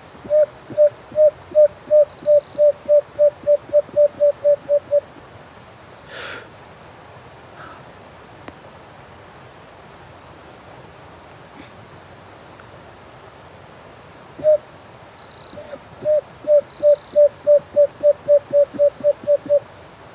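A hooting bird call made by blowing into cupped hands: a run of about fourteen low, even hoots that come a little faster as they go, then after a pause one single hoot and a second run like the first.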